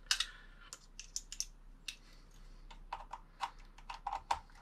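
Irregular light clicks and taps of small hard parts being handled: a screwdriver and small screws picked up and set down.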